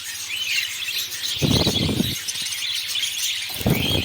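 A flock of budgerigars chirping and chattering continuously, with two short, loud rustling bursts about two seconds apart.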